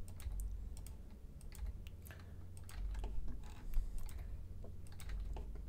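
Scattered, irregular clicks of a computer keyboard and mouse, over a low steady hum.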